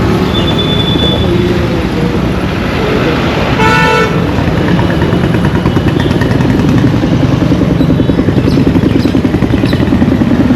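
Road traffic over a steady deep rumble. Short high beeps near the start and a brief vehicle horn honk about three and a half seconds in. In the second half an engine runs with a fast, even putter.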